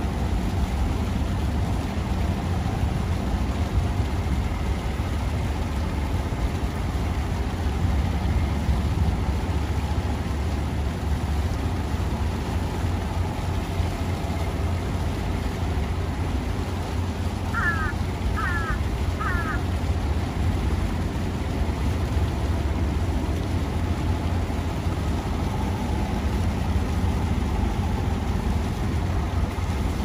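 Steady low outdoor rumble with no clear single source, and three short high chirps in quick succession about two thirds of the way through.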